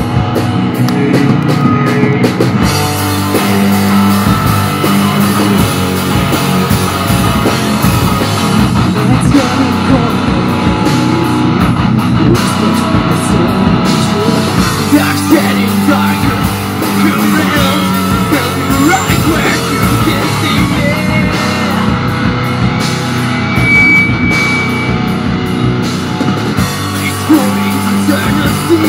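A live rock band plays with electric guitars and a drum kit.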